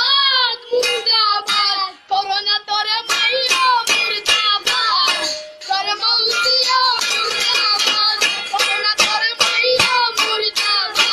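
High-pitched singing, a child's voice, with music and a steady beat of sharp strikes.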